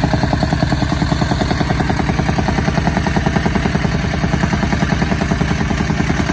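Small petrol-engine soil compactor running steadily, beating the earth fill at a fast, even pulse of about ten strokes a second with a clattering edge.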